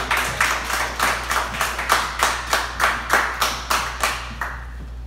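Hand clapping from a small audience welcoming a comedian to the stage: distinct, evenly spaced claps about three a second that stop about four and a half seconds in.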